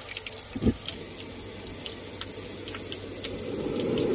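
Water rushing from an open hot tap through a Junkers gas water heater, with faint sharp ticks of its spark igniter. A dull thump about a second in is the gas burner lighting, a sign that the heater now fires after its misadjusted switch was set right.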